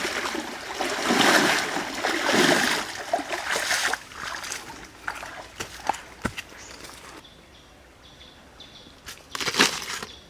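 Water sloshing and splashing in three or four swells for about four seconds, then scattered light knocks, and a sharp, loud knock near the end.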